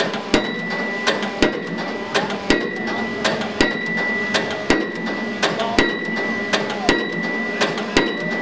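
Pile-driving hammer on a piling rig striking a pile, about one heavy blow a second, each blow followed by a brief ringing tone, with lighter knocks in between.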